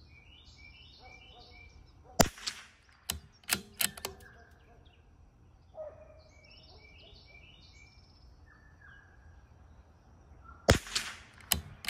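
CZ 457 bolt-action rifle firing Eley Match .22 LR rounds: two sharp shots about eight and a half seconds apart. After the first shot the bolt is worked with a few quick metallic clicks. Birds chirp between the shots.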